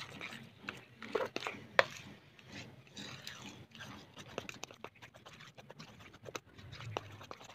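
Hands squishing and mixing a sticky mashed banana and flour batter in a plastic bowl: irregular wet squelches and clicks, the sharpest just under two seconds in.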